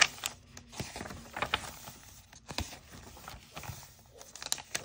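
Paper pages of a handmade mixed-paper art journal being turned and smoothed flat by hand: a crisp page snap at the start, then scattered soft rustles and taps.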